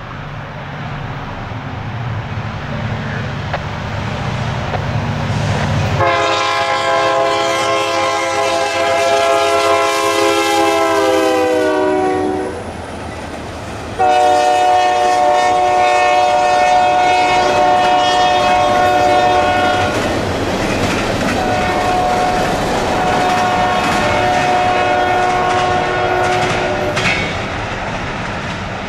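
Union Pacific diesel freight locomotives approaching with a low engine rumble, then sounding a multi-note air horn chord in three long blasts, the first dropping in pitch as the locomotive passes. Steel wheels clatter over the rails underneath.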